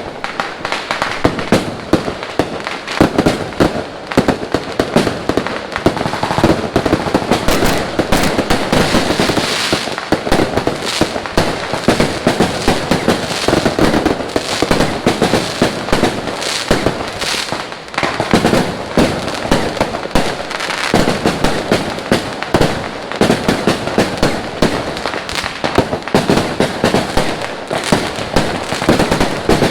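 Fireworks going off in a dense, unbroken barrage: rapid overlapping bangs and crackling, many at once, with no pause.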